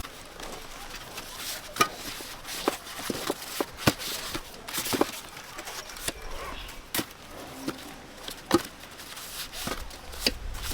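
A blade chopping plant material in irregular sharp strokes, roughly one every second or so.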